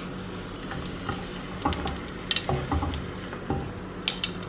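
Dried red chillies frying in hot coconut oil in a nonstick kadai over a steady low hum. A spatula knocks and scrapes the pan through the middle, and a few sharp crackles come near the end.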